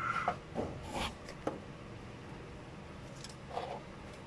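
A few sharp metallic clicks and scrapes of a hand tool working a circlip into its groove on the gear-shift cable joint, most of them in the first second and a half, then a softer knock. The circlip is a stiff fit.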